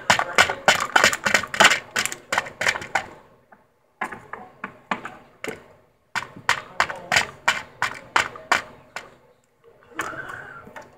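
Hard plastic toy figures tapping and clattering on a tabletop, about four quick taps a second, as they are hopped along on sticks. The tapping stops briefly twice, and a softer rustle comes near the end.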